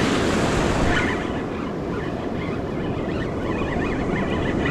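Ocean surf breaking, with wind buffeting the microphone.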